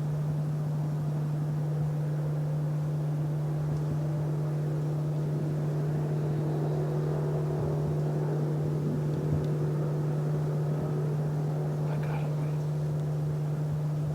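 A steady low hum with a few fainter higher tones over it, unchanging throughout.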